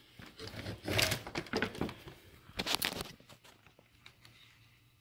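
Plastic radiator shutter assembly being handled on a bench: a few short knocks and scraping rubs, the loudest about a second in and again near three seconds.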